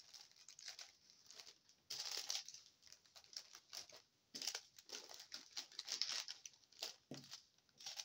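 Clear plastic packaging crinkling as it is handled, in irregular bursts with short pauses between.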